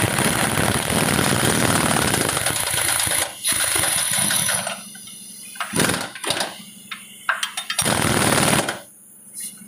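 Pneumatic impact wrench hammering on the nuts of a truck's engine and transmission mount bolts, with air hissing. It runs in bursts: a long run of about three seconds, another of about a second, a few short blips, then a last run near the end.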